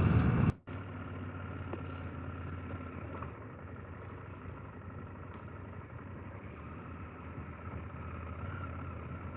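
KTM 890 Adventure R's parallel-twin engine running steadily with an even hum. A louder stretch cuts off abruptly about half a second in.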